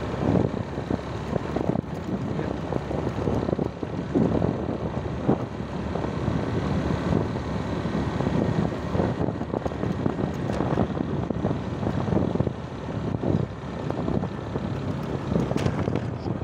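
Wind buffeting a phone's microphone on a moving motorcycle in uneven gusts, with the motorcycle running underneath.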